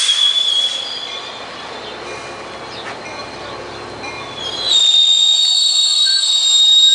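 Coaster Bombardier BiLevel commuter coaches rolling past, wheels squealing with a steady high-pitched whine. The squeal dies away about a second in, leaving a low rolling rumble, then comes back louder and slightly higher about four and a half seconds in.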